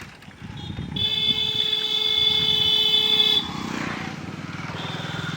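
A vehicle horn sounds one steady, unbroken note for about two and a half seconds, starting about a second in, over the steady running of a motorcycle engine.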